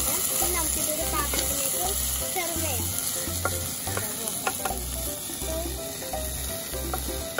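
Okra sizzling as it is stirred and fried in a pan, over background music with a steady beat.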